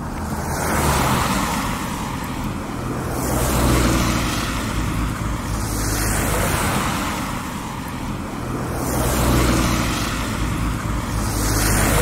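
Rain hiss mixed with street traffic, cars passing on a wet road, the noise swelling and easing every two to three seconds as vehicles go by.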